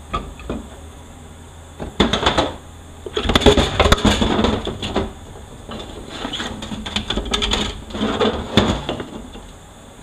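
Metal parts of a 4L80E automatic transmission clinking and clattering as they are handled and set down during teardown, in several bursts, the longest about three seconds in.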